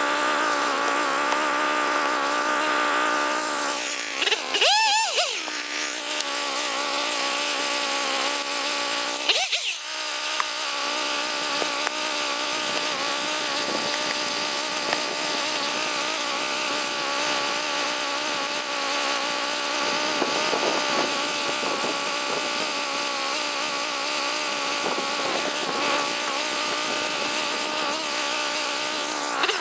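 Stihl two-stroke chainsaw engine idling steadily, revved up and back down briefly twice, about five and ten seconds in.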